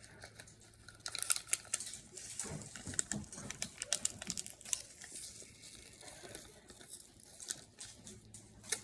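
Irregular crackling and crinkling made of many sharp small clicks, densest from about one to five seconds in, then sparser.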